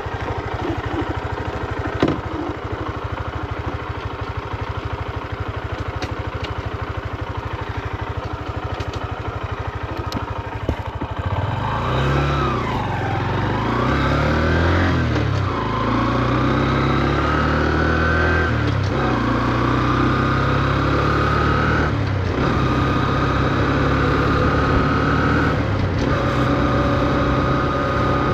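A Honda CB125F's 124 cc air-cooled single-cylinder four-stroke engine idles for about eleven seconds, then pulls away and accelerates. The revs rise and drop back at each of several upshifts, then settle to a steady cruise. The new engine is kept at low revs while it is run in.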